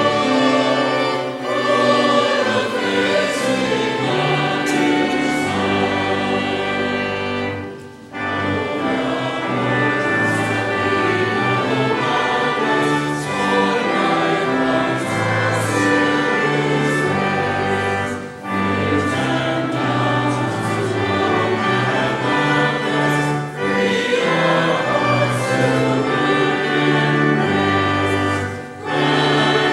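Choir singing a hymn with church organ accompaniment, sustained chords over a bass line, with short breaks between phrases.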